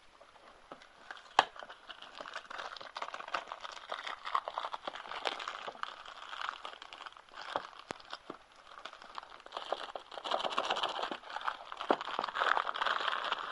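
A DVD box set's packaging being unwrapped by hand: continuous crinkling and rustling with scattered sharp clicks. It grows louder and busier in the last few seconds.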